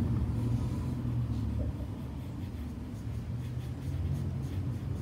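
Pencil sketching on paper: a series of light, short strokes as an eye is drawn, over a steady low rumble.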